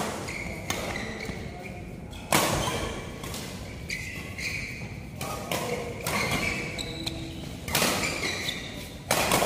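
Badminton rally in play: sharp hits of rackets on the shuttlecock, the loudest about two seconds in and again near the end, with short high squeaks between the hits.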